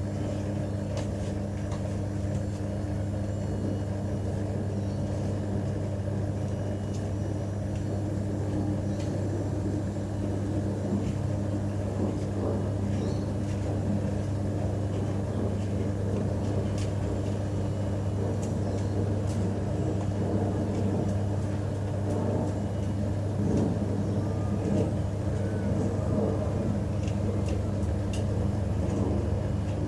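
LG TurboDrum WT-R852 top-loading washing machine running mid-cycle with a full load of bedding: a steady motor hum under an uneven churning noise that grows a little louder toward the end.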